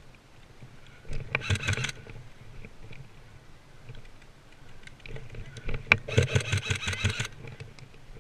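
Airsoft rifle firing two fast full-auto bursts: a short one about a second in and a longer one of about a second and a half near six seconds in.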